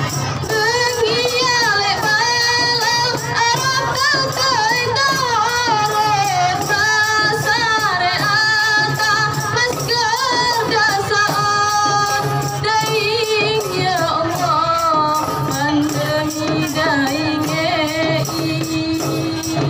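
Women's voices singing a nasyid song in the Simeulue language, accompanied by rebana frame drums and amplified through a sound system.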